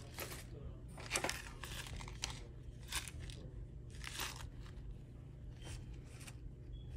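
Small zip-lock plastic parts bags crinkling in the hand in irregular bursts as they are turned over and handled.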